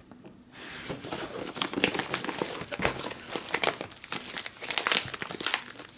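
Plastic MRE meal bags and the cardboard case crinkling and rustling as they are handled, starting about half a second in and continuing as a dense run of crackles.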